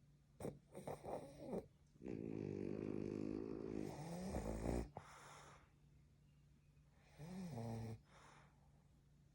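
French bulldog snoring in its sleep: a few quick short snorts, then one long snore lasting about three seconds, and a shorter one near the end.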